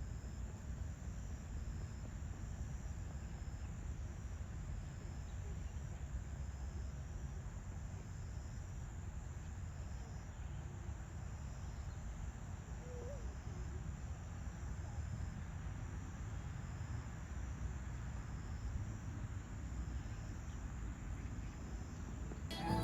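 Steady background noise: a low rumble with a faint hiss and a faint, evenly repeating high pulsing over it.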